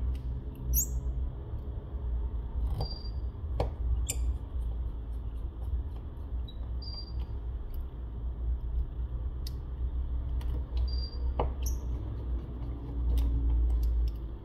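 Scattered small clicks and light taps as a precision screwdriver and small parts are handled on a smartphone's metal frame during reassembly, over a low steady rumble.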